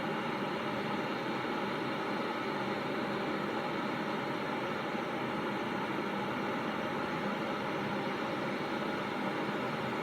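Electric kettle heating water, not yet at the boil: a steady rushing hiss with no breaks.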